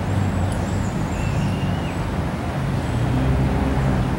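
Street traffic: motor vehicles running nearby, with a steady low engine hum that shifts slowly in pitch.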